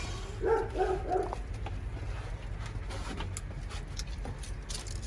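MAN truck's diesel engine idling low and steady, building air pressure for the cab's air cushions. A dog gives three short whining yips about half a second in.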